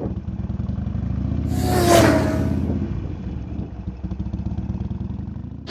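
Harley-Davidson XL 1200 Sportster's V-twin engine running on the road, picked up by a helmet-mounted camera. A broad rushing whoosh swells and fades about two seconds in.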